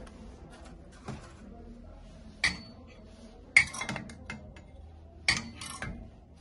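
Stainless steel cocktail shaker cups clinking and knocking against each other and against the metal clamps of an electric milk tea shaker machine as they are fitted in. Several sharp metallic knocks with lighter rattles between; the loudest comes about halfway through.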